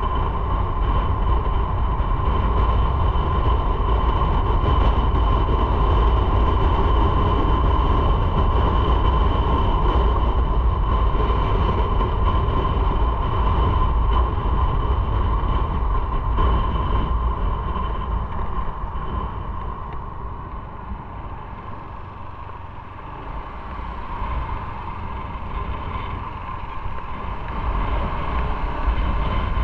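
Motorcycle on the move at road speed: a steady mix of engine and wind noise with a constant whine running through it. The noise eases off about two-thirds of the way in and builds up again near the end.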